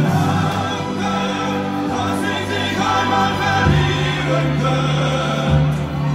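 Music with several voices singing together in chorus over sustained bass notes, the bass moving to a new note a little over halfway through.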